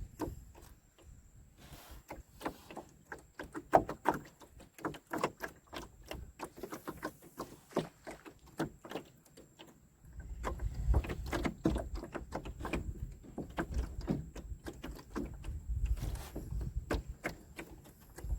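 Fishing tackle being handled: a run of irregular light clicks and knocks, with low rumbling added from about ten seconds in.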